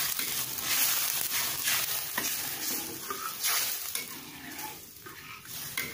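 Seasoned soy-sauce liquid sizzling in a pan over the stove, with repeated spatula stirring strokes, growing quieter toward the end.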